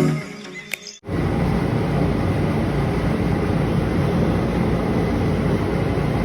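The intro music ends abruptly about a second in. A steady rumble and hiss follows, the sound of a rooftop gas heating unit running.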